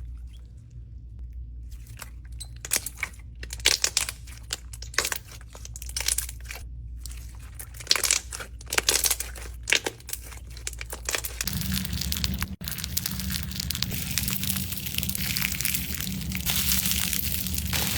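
Close-up ASMR crushing of something crisp and crumbly: sharp separate crackles and crunches, turning about eleven seconds in into a dense, continuous crumbling crackle over a low hum.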